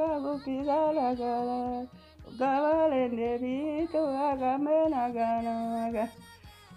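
A single voice singing a slow melody in long held, wavering notes, breaking off briefly about two seconds in and again near the end.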